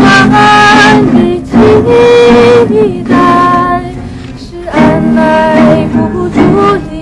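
A Mandarin pop song: a singer holding long notes over a band accompaniment.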